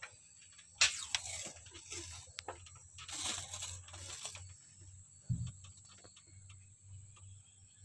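Paper crinkling and tearing by hand in two bursts, one about a second in and a longer one around three to four seconds, as a rubbing sheet is fixed over a stamped chassis number. A short dull bump comes a little after five seconds.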